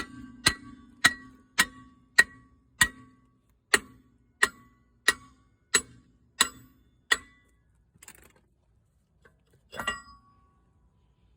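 Parking brake being backed off, clicking notch by notch: a steady run of sharp metallic clicks, a little under two a second, that stops about seven seconds in, followed by a quieter click or two near the end.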